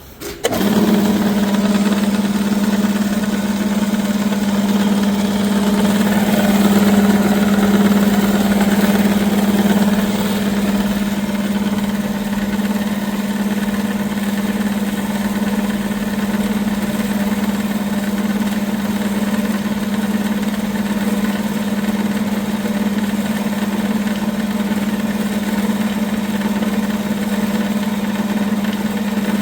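Metal-cutting bandsaw with a single-phase 1 hp motor and belt drive starting up and running steadily, with a strong low hum. It settles slightly quieter about ten seconds in.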